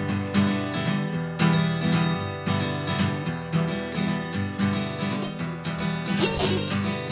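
Acoustic guitar strummed in a steady rhythm, about two strokes a second, chords ringing between strokes.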